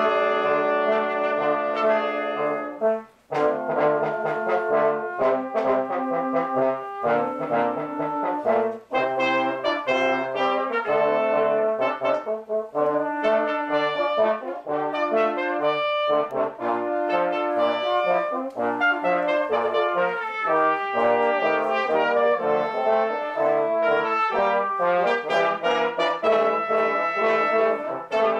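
Small brass ensemble of trumpets, a French horn and trombones playing a piece together in held chords and moving lines, with a brief break about three seconds in.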